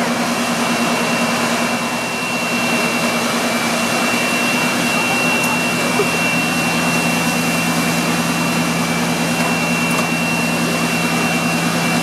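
Fire engine machinery running steadily: a loud engine-and-pump drone with a steady hum and a thin high whine on top, and a second lower hum joining about halfway through.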